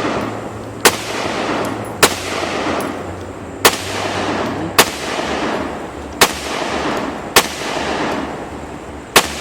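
Seven gunshots fired at a steady pace, one every second or so, each sharp crack followed by a long fading echo.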